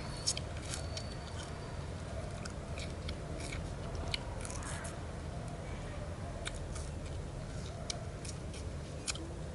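Chewing a small piece of raw sugarcane: irregular crunchy clicks as the fibrous stalk is bitten and squeezed between the teeth, over a steady low background hum.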